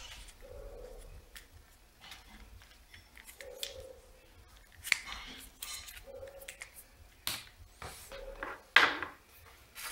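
Plastic action-camera mount parts handled and set down on a desk: scattered light clicks and knocks, the loudest near the end.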